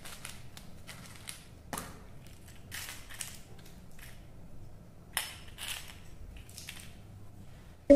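Scattered plastic clicks and rustles as hands open an orange plastic capsule ball, pulling its two halves apart, and handle the candies inside.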